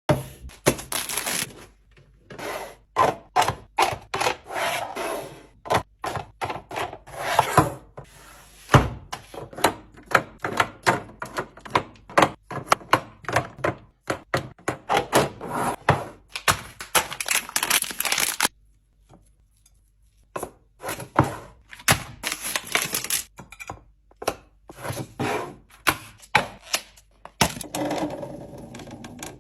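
Containers, bottles and packaging handled and set into a fridge: a busy string of clicks, clacks, knocks and rustling rubs, with a silent break of about two seconds a little past the middle.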